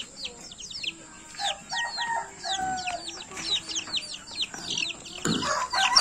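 Young native chicken chicks peeping, a steady stream of short, high chirps that slide downward, with a few lower, longer calls mixed in. A louder burst of noise comes near the end.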